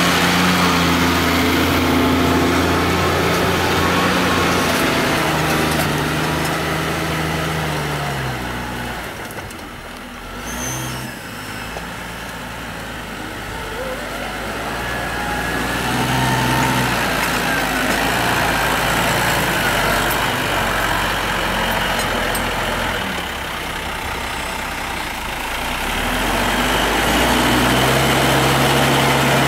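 New Holland TM120 tractor's diesel engine running while ploughing with a Kuhn MultiMaster reversible plough. It is loud as the tractor passes close, falls away in the middle while the tractor is off with the plough raised, and builds again as it comes back near. The engine note shifts pitch a few times.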